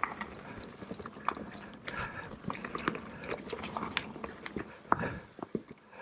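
Mountain e-bike rolling over rough trail: tyres crunching on dirt and stones with irregular clicks and knocks from the bike rattling over the bumps.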